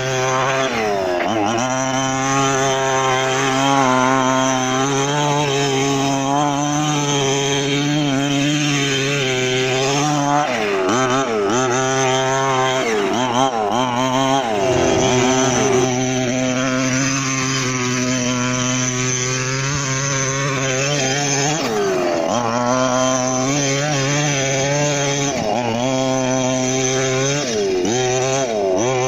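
Two-stroke gas engine of a 1/5-scale RC monster truck running hard, its pitch swinging up and down again and again as the throttle is opened and closed, with stretches held at steady high revs in between.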